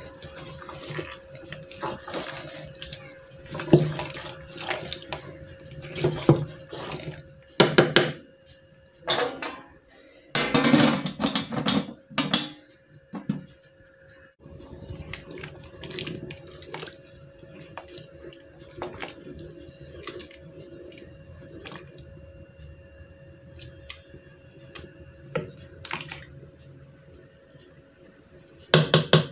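Wooden spoon stirring chopped tomatoes in a large aluminium pot: wet squishing and knocks against the pot, loudest about ten to thirteen seconds in. After that comes a softer, steadier sound as the tomatoes stew in their juice, with a faint steady hum underneath.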